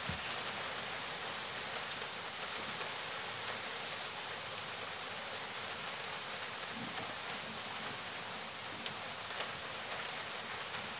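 Steady, even hiss of background noise, with a few faint light clicks scattered through it, mostly near the end.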